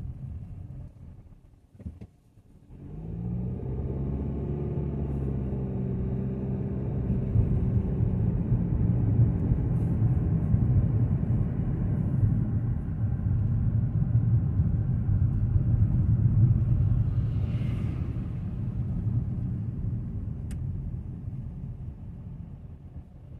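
Kia Seltos's engine and road noise heard from inside the cabin. It dips to almost nothing for a moment about two seconds in, then the engine note rises as the car pulls away. It settles into a steady low rumble while driving, then eases off as the car slows near the end.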